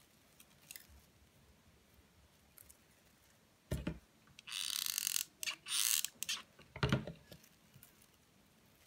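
Tabletop handling of a hot glue gun and a velvet pincushion: quiet at first, then a low knock a little before four seconds in, two short bursts of rustling around five and six seconds, and another knock near seven seconds.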